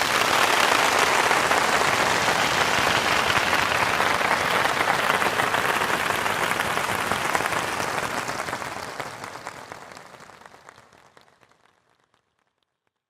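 An audience applauding: dense clapping starts at once, holds steady for about eight seconds, then dies away over the next few seconds.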